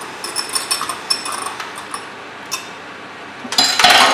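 Hand-cranked rotary egg beater whisking egg and milk in a drinking glass: the gears click and the beaters rattle against the glass in quick, uneven bursts, with a louder, denser clatter near the end.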